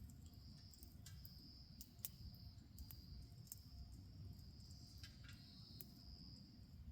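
Faint, steady high-pitched insect trilling that pauses briefly now and then, over a low rumble, with scattered sharp crackles from a wood bonfire.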